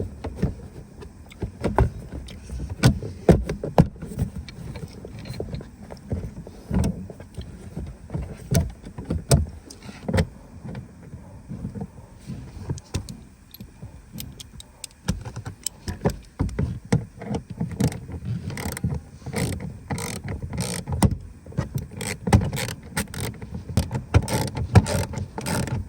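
Plastic lower glovebox cover panel being refitted by hand, with its screws driven back in: irregular clicks, knocks and rattles of plastic and tool, coming thicker in the last several seconds.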